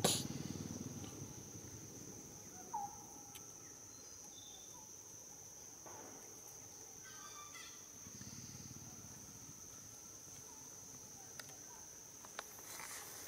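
Insects buzzing steadily at one high pitch, with a few faint short chirps and clicks over it and a brief rustle near the end.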